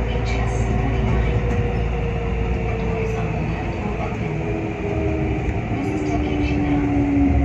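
Kintetsu 5800-series electric train heard from inside the cab as it slows into a station: the motors whine in several tones that slowly fall in pitch, over a low rumble from the wheels on the rails.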